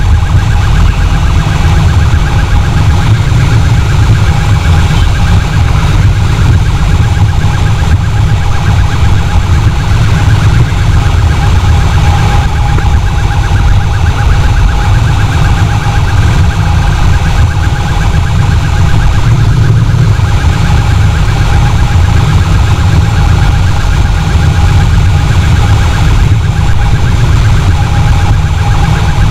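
Heavy wind roar on the microphone of a motorcycle riding at speed, under a steady high-pitched electronic siren with a fast warble.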